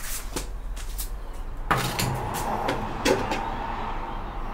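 Stainless-steel deep fryer being opened and handled: a few sharp metal clicks and knocks as the lid comes off and the wire frying basket is lifted out, the loudest knock a little under two seconds in.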